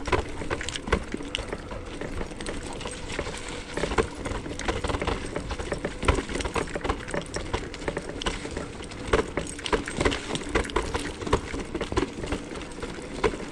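Varla Eagle One off-road electric scooter ridden over dry leaves and pine needles: its tyres crunch and crackle in a dense irregular patter of clicks over a low rumble, with a faint steady whine underneath.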